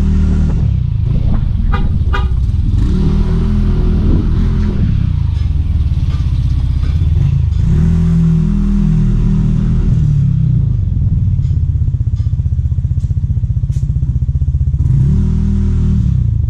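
Motor scooter engine running under way at low speed, its pitch rising and falling several times as the rider speeds up and eases off. The scooter has an aftermarket exhaust pipe.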